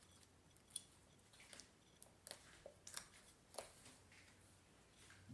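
Faint sticky clicks and pops of homemade slime being handled, a handful of separate snaps with the sharpest about a second in.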